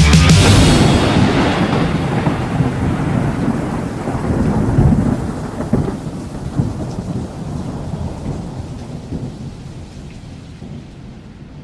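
The synthwave track's drums and synths break off in the first second, leaving a recorded thunderstorm, rolling thunder over rain. It fades out slowly, with a louder rumble about five seconds in.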